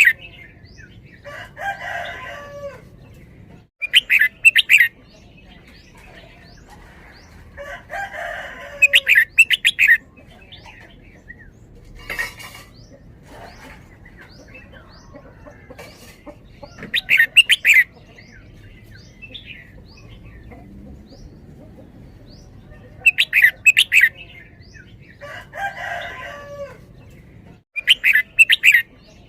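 Red-whiskered bulbul singing: short, loud phrases of rapid notes repeated about every five to six seconds, with softer, lower warbled phrases in between and faint chirps throughout.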